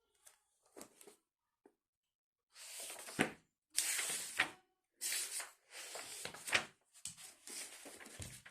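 Rustling and handling noises in a run of bursts about a second long each, with a few sharper clicks among them.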